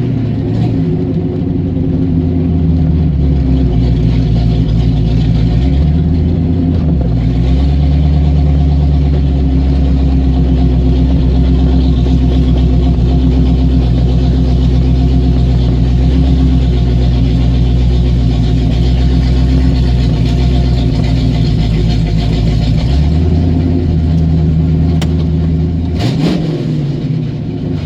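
A car's engine and exhaust running loud and steady, the note stepping up in pitch about a quarter of the way in and dropping back near the end, with a quick dip and rise in pitch shortly before it fades.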